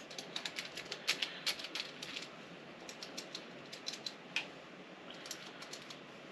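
Typing on a mechanical keyboard with MX-style key switches: a quick run of key clicks for about two seconds, then scattered keystrokes until near the end.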